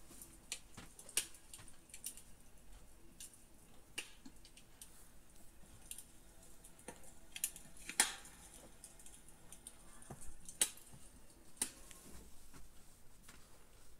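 Wood-fire crackling from a fireplace video played through a Philips 32PHS6808 TV's speakers: irregular sharp pops and snaps over a faint hiss, the loudest snaps about eight seconds and ten and a half seconds in.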